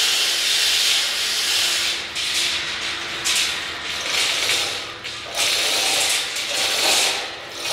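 A steady hiss, then from about two seconds in an irregular run of mechanical rattling and clattering in short bursts.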